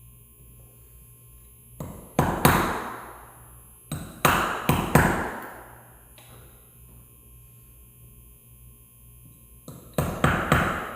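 Hammer striking a chisel, in three quick runs of three or four blows, each blow ringing briefly: chiselling a shallow recess into a door edge for a deadbolt.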